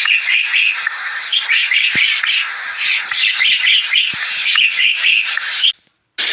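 Many short, high animal chirps overlapping one another, stopping suddenly near the end.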